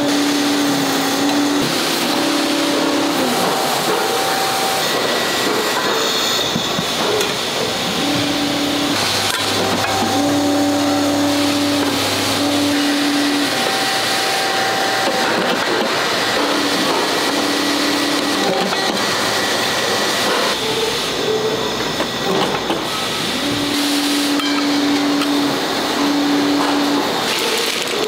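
Factory machinery running: a steady mechanical din with a low hum that comes and goes every few seconds.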